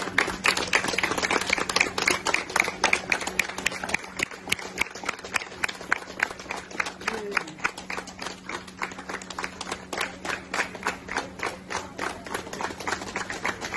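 A small group of people clapping their hands in applause, quick and continuous, louder over the first few seconds and then thinning out and quieter.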